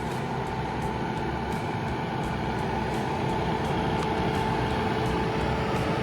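Bobcat 337 compact excavator's diesel engine running steadily under hydraulic load as the machine swings, with a steady whine over the engine noise.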